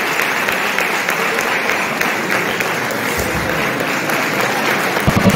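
Audience applauding steadily. Music starts right at the end.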